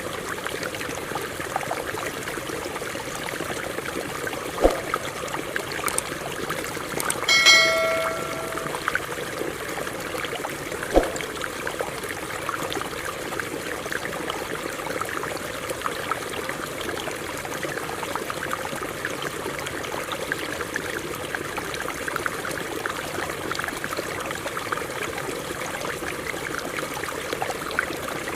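Water running over rocks in a stream, a steady rush. About seven seconds in, a brief pitched tone with several overtones is heard, and two sharp knocks come, one just before it and one a few seconds after.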